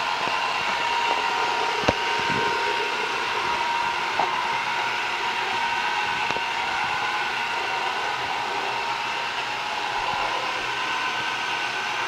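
Roomba robot vacuum running across a tile floor, a steady whir of its motors and brushes with a high tonal hum. A single sharp knock comes about two seconds in.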